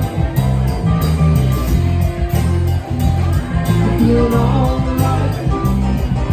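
Live band playing a song: bass, guitar and drums with a steady beat.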